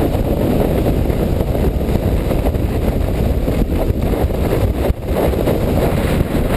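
Strong wind buffeting the microphone: a loud, steady, rumbling rush with no break.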